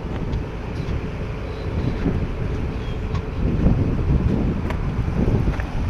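Wind buffeting the microphone: a loud low rumble that rises and falls in gusts.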